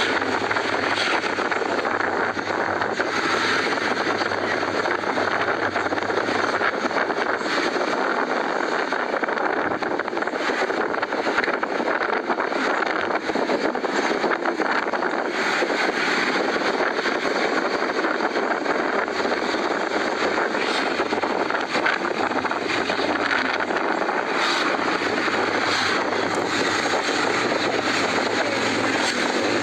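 Steady rush of wind and road noise while riding a motorcycle, with wind buffeting the phone's microphone and the bike's running noise underneath.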